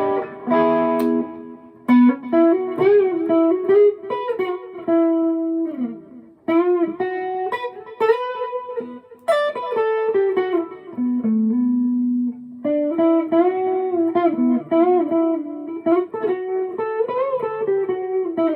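Harley Benton SC-DLX electric guitar played through a Tone City King of Blues overdrive pedal on its A channel: a bluesy single-note lead with frequent string bends and a held low note about two-thirds of the way through.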